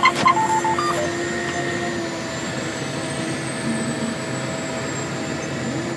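Farm tractor heard from inside the cab while planting: a steady engine and machinery drone with a thin high whine. There are a few short electronic beeps and clicks in the first second.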